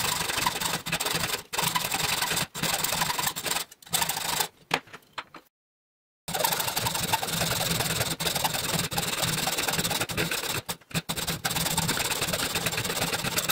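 Hand hacksaw cutting through half-inch-thick aluminum plate held in a bench vise: a steady rasping in back-and-forth strokes. It cuts out abruptly for under a second about five and a half seconds in.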